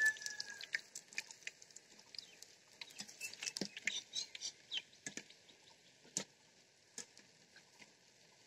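Boondi (drops of gram-flour batter) frying in hot oil in a pan, crackling with quick irregular pops that are busiest a few seconds in and thin out toward the end.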